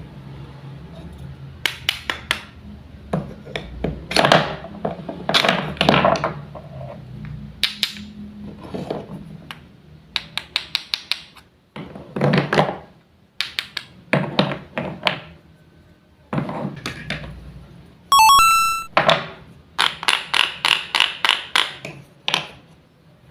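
Wooden toy fruits, vegetables and toy knife knocking and clacking on a wooden board: scattered thunks and clicks, some in quick runs of several taps a second. A short chiming ding sounds about eighteen seconds in.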